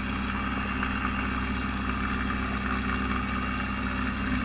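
Vacuum pump motor running with a steady, even hum.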